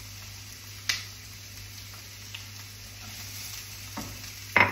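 Chopped onions sizzling faintly in a frying pan, with a sharp utensil knock about a second in and two louder knocks near the end as the spatula and bowl strike.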